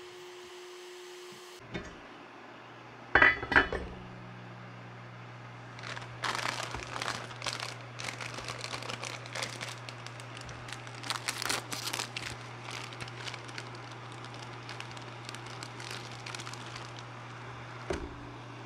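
Kitchen cooking sounds over a steady low hum: a metal pot lid clinks twice about three seconds in, followed by about ten seconds of irregular crinkling and clattering.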